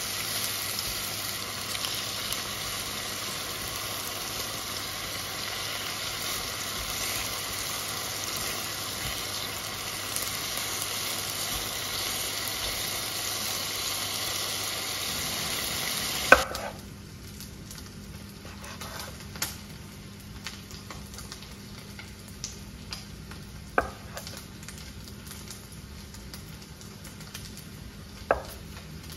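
Food sizzling steadily in a hot frying pan. About two-thirds of the way through the sizzle drops off abruptly with a sharp knock, leaving a much fainter sizzle with a few light clicks.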